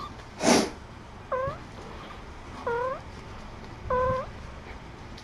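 A short, loud rush of noise, then a kitten meowing three times: short, pitched mews a little over a second apart.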